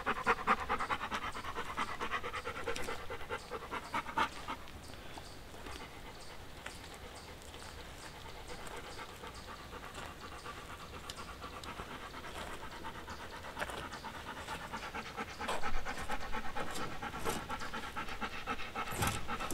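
Dog panting in a quick, steady rhythm, louder at the start and again near the end.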